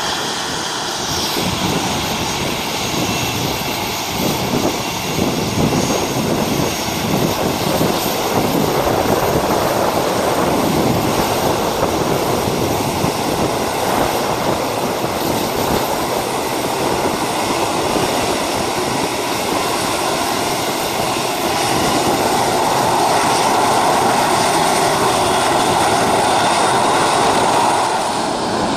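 Aircraft engines at close range: a loud, steady engine noise that grows somewhat louder about two-thirds of the way through.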